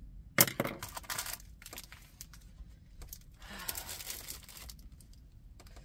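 Plastic packaging crinkling as it is handled: a loud rustle about half a second in that lasts about a second, a few light clicks, then a second stretch of crinkling around three and a half seconds in.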